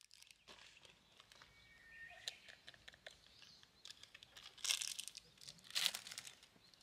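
Rustling and crinkling of things handled at a camp table, with scattered small clicks and two louder rustles about a second apart near the end.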